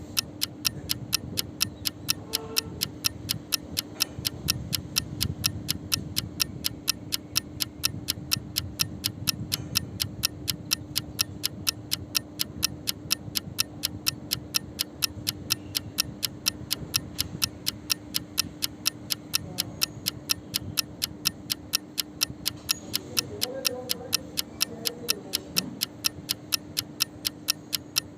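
A 'tiktik' sound effect, the ticking call of the tiktik creature from Philippine folklore: sharp, evenly spaced clicks, about three a second, over a steady low hum.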